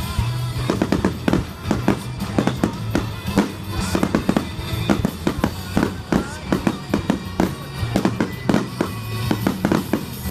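Finale barrage of fireworks: a rapid run of bangs and crackles, several a second, over music playing in the background.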